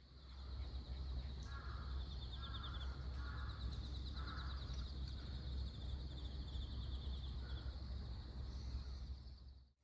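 Outdoor ambience: a steady low rumble of wind or distant noise under a continuous high, fast-pulsing trill, with a run of five short bird calls between about one and a half and four and a half seconds in.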